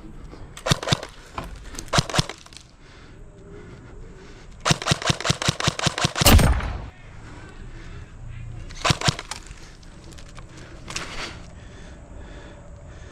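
Airsoft electric rifles firing bursts of BBs as rapid clicking shots, in several short strings. A longer rapid burst about halfway through ends in one loud thump, the loudest sound here, and two more short bursts follow later.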